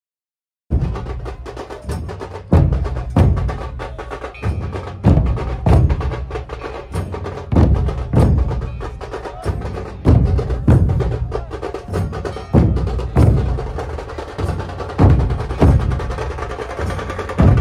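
A group of large double-headed drums beaten with sticks in a steady procession rhythm: pairs of heavy strokes about every two and a half seconds, with lighter, sharper stick clicks between them. It starts abruptly just under a second in.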